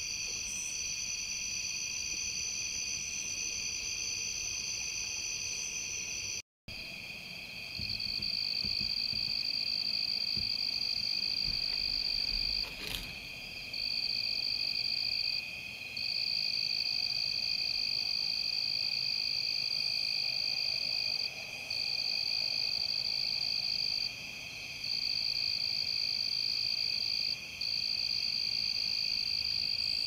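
Dusk chorus of insects: several layers of steady, high-pitched trilling. One of the layers stops for a moment every few seconds. The sound cuts out completely for an instant about six seconds in.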